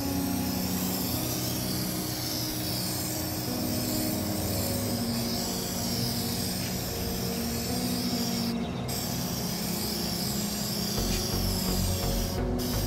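Aerosol spray paint can hissing in long sprays, cut off briefly twice in the last few seconds, over background music of held notes.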